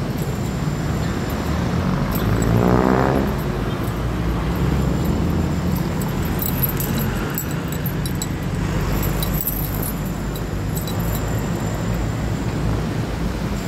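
City street traffic: a steady low rumble of passing cars. About three seconds in, one vehicle's engine revs up with a rising pitch, the loudest moment.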